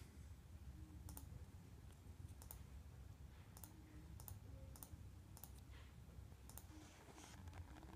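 Faint computer mouse clicks, scattered single clicks and quick double clicks, over a low steady room hum.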